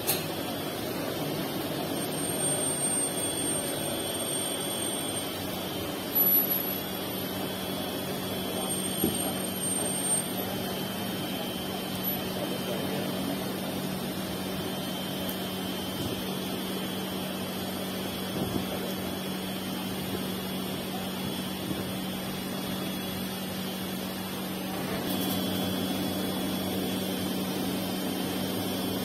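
Steady drone of running machinery, a low hum with a hiss over it, broken by a few brief knocks about six and nine seconds in, and growing a little louder near the end.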